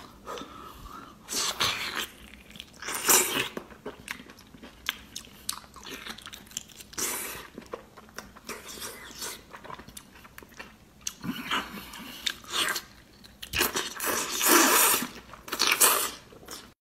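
Mouth sounds of a person biting into and chewing a whole octopus, in irregular bursts with the loudest about three seconds in and again near the end.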